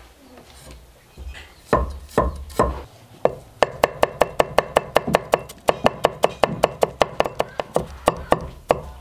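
Chinese cleaver mincing ginger and garlic on a thick round wooden chopping block. A few separate chops come first, then from about three and a half seconds in a fast, even run of chops at about five a second.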